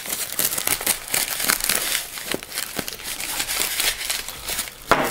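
Plastic postal mailer bag being cut open with a pocket knife and crumpled in the hand, giving continuous crinkling and crackling with a louder crackle near the end.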